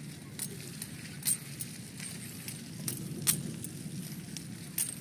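Bicycle riding over a bumpy grass-and-dirt path: a steady low rumble with irregular sharp metallic clinks and rattles from the bike, the loudest about 1.3 and 3.3 seconds in.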